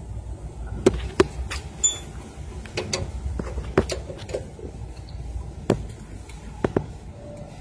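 Spanner working the adjusting nut of a Mitsubishi Canter's exhaust brake: irregular sharp metallic clicks and taps, about a dozen in all, over a low steady hum.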